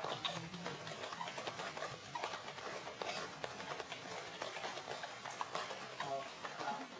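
A macaque's short squeals and cries, repeated in scattered brief calls, with a cluster of squeaks near the end.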